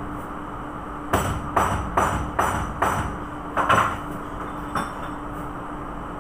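Sharp metallic knocks from work on a Wärtsilä 46 fuel injection pump under assembly: about two a second starting about a second in, then two single knocks, over a steady background hum.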